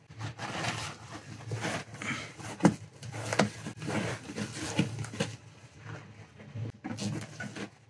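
Leather upholstery cover rustling and rubbing as it is pressed and smoothed by hand into the buttoned tufts of a chesterfield sofa, with irregular soft knocks and one sharper click about two and a half seconds in.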